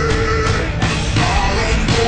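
Loud hard rock music: a full band playing steadily, with a note held through the first part.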